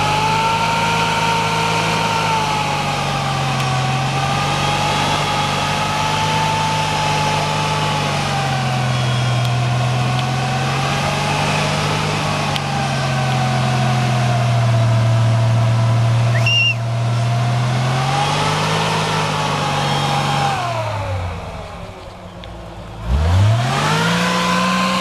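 Toyota Land Cruiser 40-series engine working under load as the four-by-four claws up a deep muddy rut, its note rising and falling slowly with the throttle. Near the end it drops off and quietens, then revs up sharply again.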